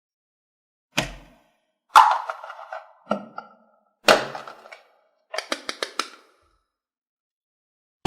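Four separate hard knocks about a second apart, each with a short ringing tail, then a quick run of about six clicks.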